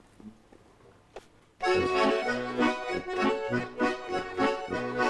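Bayan (Russian button accordion) starts playing about a second and a half in, a rhythmic introduction of chords and melody for a folk song, after a near-quiet moment broken by a single click.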